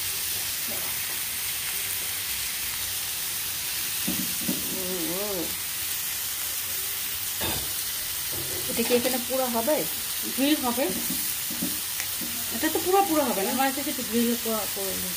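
Meat frying, with a steady sizzling hiss. A voice is briefly heard three times over it.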